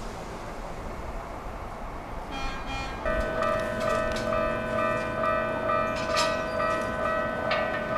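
A railway level-crossing warning bell starts up about three seconds in and rings on in steady, evenly repeating electronic clangs, over background noise and a few sharp clicks.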